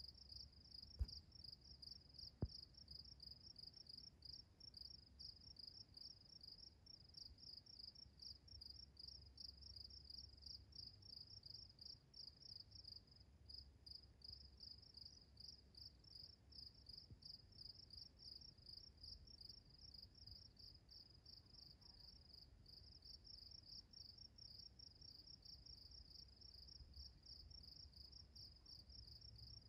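Insects chirping steadily in a faint, high, evenly pulsed trill. Two sharp clicks come about one and two and a half seconds in, over a faint low rumble.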